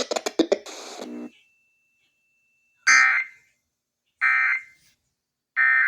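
Emergency Alert System data tones coming over a radio broadcast: three short, raspy digital squawks about 1.3 s apart, the end-of-message signal that closes a severe thunderstorm warning. A second or so of clicks and hiss comes before them.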